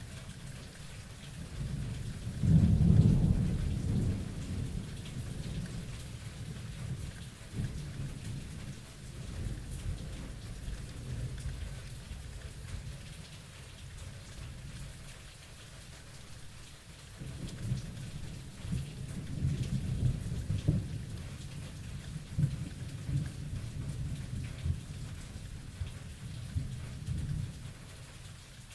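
Thunderstorm: steady rain hissing, with a loud clap of thunder rumbling low about two and a half seconds in and a longer roll of thunder rumbling through the second half.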